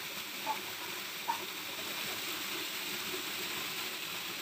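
Steady rushing of flowing river water, with two brief faint voices about half a second and a second and a half in.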